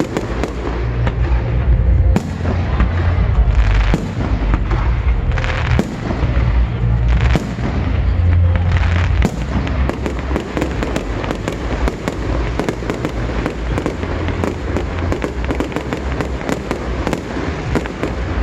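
Aerial fireworks going off in quick succession: many sharp bangs and crackles over a continuous low rumble of booms, densest in the second half.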